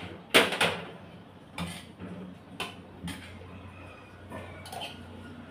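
A spoon clinking and scraping on a plate of rice while eating: a quick cluster of sharp clinks about half a second in, then single clinks about once a second and a few more near the end.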